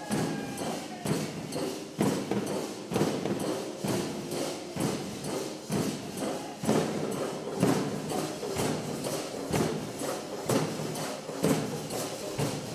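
A troupe of Mysore folk drummers beating large barrel drums (dollu) with sticks in a fast, driving rhythm. Heavy accented strokes land about once a second over the dense beat.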